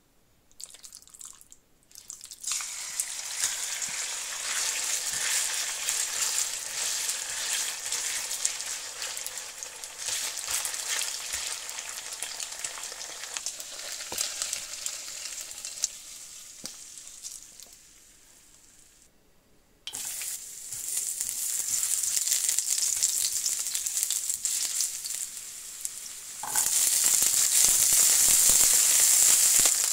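Chicken pieces sizzling in hot oil in a wok. The sizzle dies down, then starts again sharply as scallion and ginger go into the oil, and grows louder near the end while they are stirred with a spatula.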